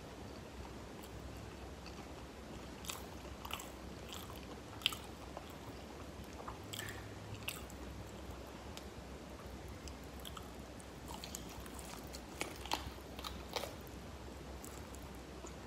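A person chewing and biting into crisp fried chicken wings, close to the microphone: scattered short crunches and clicks, more of them in two brief clusters.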